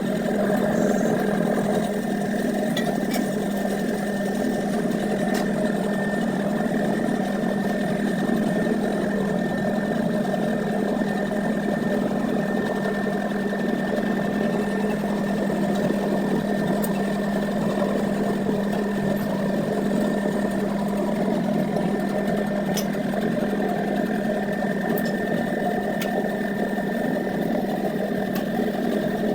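A motor-driven machine running steadily, with a constant low hum, a fainter high whine and a few light clicks.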